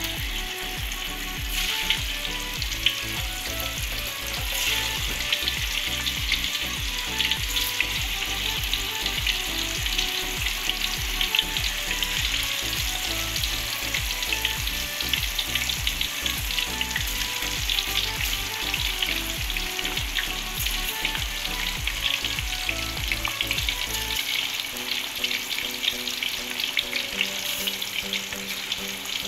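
Tofu pieces frying in hot oil in a wok: a steady sizzle thick with small crackles and pops.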